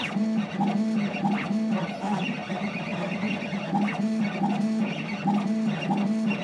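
DIY CNC machine's stepper motors humming in short tones that step up and down as it moves, while a spring-loaded drag-engraving needle scratches lines into acrylic.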